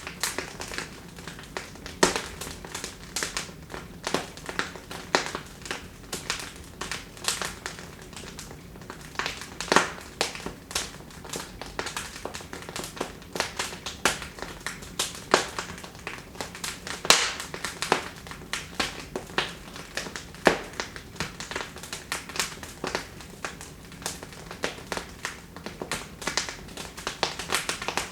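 Wood fire in a fireplace crackling, with irregular sharp pops and snaps several times a second and a few louder cracks now and then.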